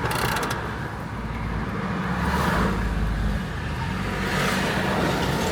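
Car engine running, with road traffic noise swelling and fading as vehicles go by.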